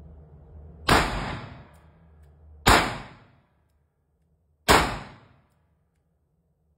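Handgun fired three times at an indoor range, shots about two seconds apart, each ringing off in a short echo.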